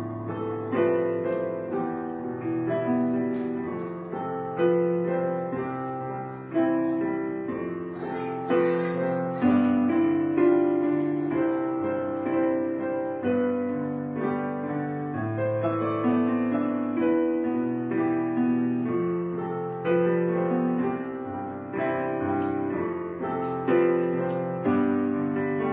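Background piano music: slow notes that strike and fade, one every second or two.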